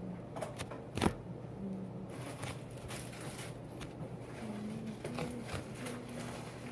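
A squishy foam toy being squeezed and handled, giving a run of soft crackling and scraping noises, with one sharper click about a second in.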